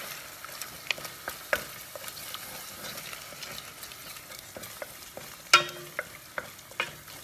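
Wooden spoon stirring and scraping eggs frying in a stainless steel pot, over a steady sizzle, with scattered clicks of the spoon on the pot and one sharper knock about five and a half seconds in.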